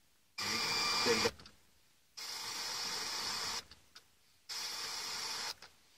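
Pioneer car radio's FM tuner stepping through empty frequencies: three short stretches of static hiss, each about a second long, broken by silent gaps.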